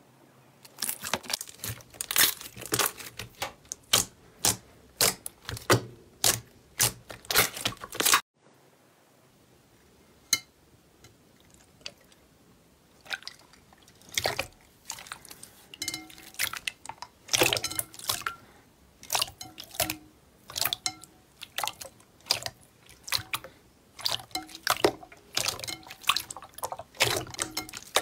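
Slime being squeezed and pressed by hand, giving quick wet pops and sticky clicks in clusters. The sound cuts off abruptly about eight seconds in, with only a few faint clicks before the popping starts again a few seconds later.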